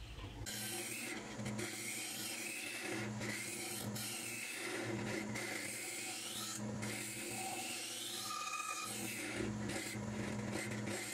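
Turning tool cutting the inside of a spinning green arbutus goblet cup on a wood lathe: a steady scraping rasp over the lathe's hum. It starts about half a second in.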